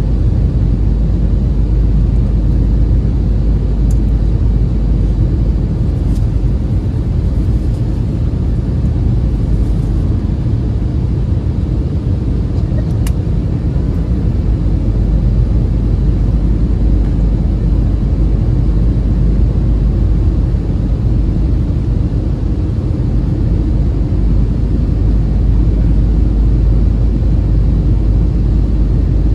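Steady cabin noise of an Airbus A320-family jet airliner on approach to land: the even rush and rumble of engines and airflow, heaviest in the low end, heard from a window seat.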